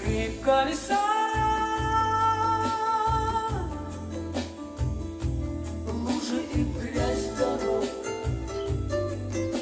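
A pop song with singing, guitar and a steady bass beat, played back through a Tridit StormBox Lava portable Bluetooth speaker; a long note is held from about a second in until about three and a half seconds.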